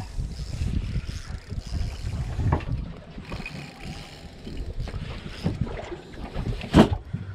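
Wind buffeting the microphone over the low, uneven rumble of a small boat at sea, with scattered knocks and one sharp knock near the end.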